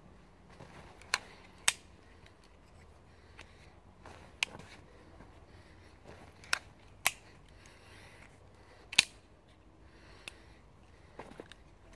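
A fixed-blade knife being handled and passed between the hands, giving a handful of sharp clicks at irregular intervals, the loudest about nine seconds in.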